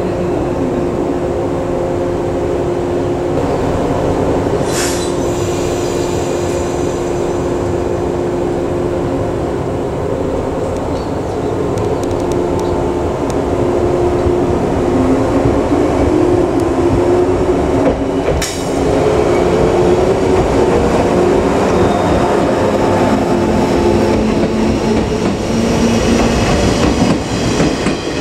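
Shinano Railway 115 series electric train pulling out and running past at close range, with a steady hum from its equipment. There is a short hiss of air about five seconds in, a rising whine as it picks up speed, then a sharp clack a little past the middle, after which it gets louder, and its wheels clack over rail joints near the end.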